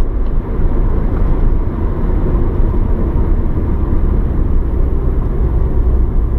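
Steady engine and road rumble heard inside the cabin of a moving 2000 Mitsubishi Lancer Evolution 6.5 Tommi Mäkinen Edition, whose engine is a turbocharged 2.0-litre four-cylinder.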